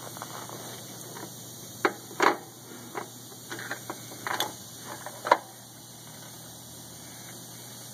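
Irregular metallic clicks and clunks from a 1999 Ford ZX2's transaxle and freshly replaced CV axle as a front wheel is turned by hand in neutral, about ten over a few seconds, ending with the loudest clunk. It is an unexplained drivetrain noise that appeared after the CV axle replacement.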